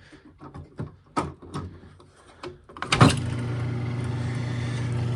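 A few light clicks and knocks as keys are set in place. About three seconds in, a small electric key-cutting machine switches on and runs with a steady hum.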